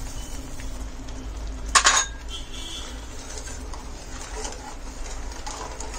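Steel ladle stirring semolina kheer in a steel pan, clinking sharply against the pan once about two seconds in, with a brief ring after it and a few softer knocks later, over a steady low hum.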